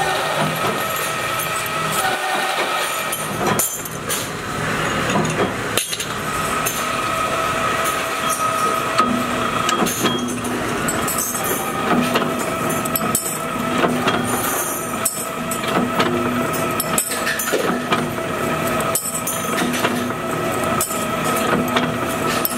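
Workshop machinery running steadily with a constant hum, through scattered sharp metallic clicks and clanks from metal parts being worked.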